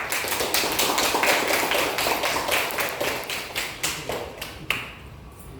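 A small group clapping in applause, dense at first and thinning out near the end.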